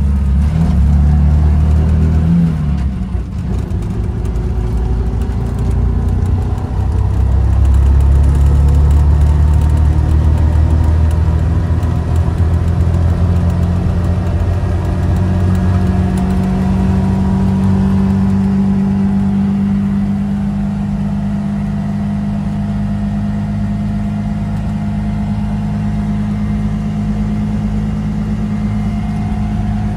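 Small engine of a mototaxi, a three-wheeled motorcycle taxi, heard from inside the cab as it drives along, a steady loud hum whose pitch rises and falls with speed.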